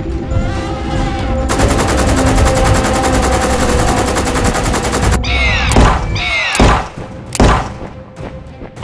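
Rapid automatic gunfire, a dense unbroken run of shots lasting about three and a half seconds, over background music. After it come several short, shrill screeches that fall in pitch.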